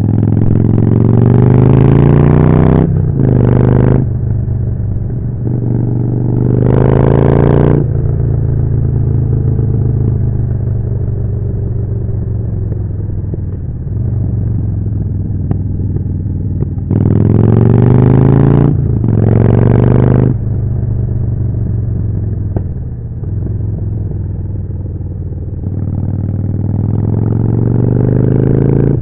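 Harley-Davidson Forty-Eight's air-cooled 1200 cc V-twin running through a Jekill & Hyde exhaust, accelerating hard through the gears with a short dip at each upshift. It eases off to a steadier cruise in the middle, pulls hard again through two more shifts, and picks up once more near the end.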